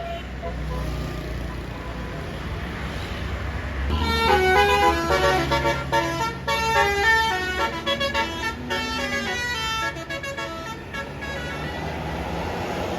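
Bus engine rumbling low, then about four seconds in a multi-tone Basuri 'telolet' bus horn plays a quick melody of stepped, shifting notes for about six seconds, followed by a steady rushing noise.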